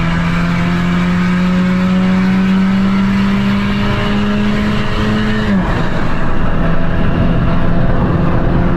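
Honda Civic LXR's 2.0-litre four-cylinder engine running through an open exhaust with a diffuser, pulling under acceleration. Its pitch climbs slowly, drops sharply at an automatic upshift about five and a half seconds in, then the engine pulls on in the next gear. Heard from inside the cabin.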